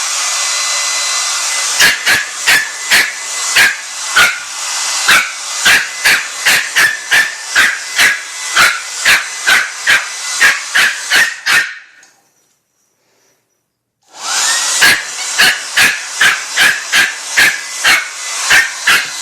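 Shih Tzu puppy barking repeatedly, about two barks a second, at a running hair dryer's steady whir and hiss. About twelve seconds in both stop for two seconds of near silence. Then the dryer starts again with a rising whine as it spins up, and the barking resumes.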